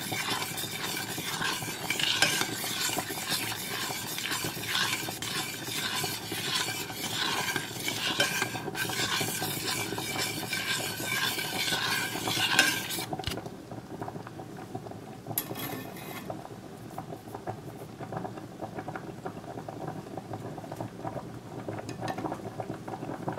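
Metal spoon stirring milk and melted butter in a stainless steel pot, scraping and clinking against the pot's sides. The stirring stops about thirteen seconds in, leaving only a faint steady hiss with a few light clicks.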